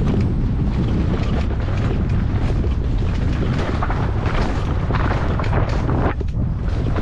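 Wind rumbling and buffeting on a helmet camera's microphone at speed, with constant clattering and knocks from a mountain bike rattling down a rough dirt trail.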